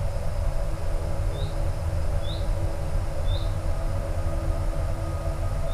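Low, uneven rumble of wind on the microphone, with a small bird giving short high rising chirps, three about a second apart and another near the end.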